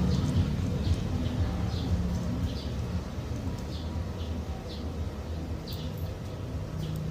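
Short bird chirps repeating about once or twice a second over a steady low hum.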